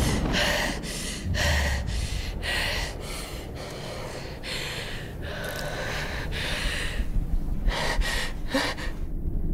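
A woman panting and gasping hard, in quick ragged breaths about twice a second with a couple of short pauses, over a low steady rumble.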